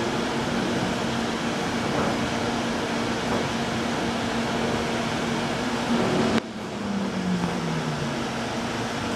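Inside a light rail train car slowing along a station platform: a steady hum over rolling and ventilation noise. About six seconds in, the noise drops abruptly and a low motor whine falls in pitch as the train brakes to a stop.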